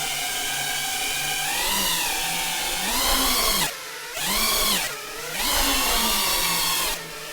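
FPV quadcopter's electric motors whining, the pitch rising and falling with the throttle. It drops away twice briefly, about halfway through, as the throttle is cut and then reapplied.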